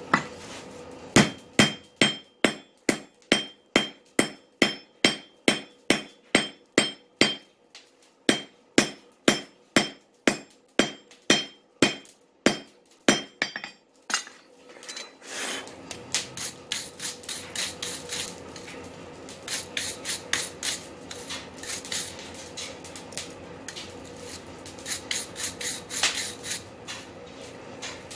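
Blacksmith's hammer striking steel on an anvil, about two to three blows a second with a ringing tone, for about fourteen seconds. After that a steady hum comes in, with quicker, lighter strikes in clusters.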